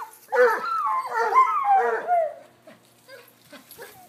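A dog barking in play: a quick run of pitched, yelping barks, several sliding down in pitch, over about two seconds. The barking stops a little past halfway, leaving only faint patter.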